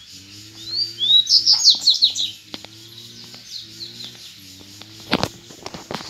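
Double-collared seedeater (coleiro) singing one quick phrase of rapid, high sweeping notes, lasting under two seconds, over a low steady hum. A sharp knock sounds near the end.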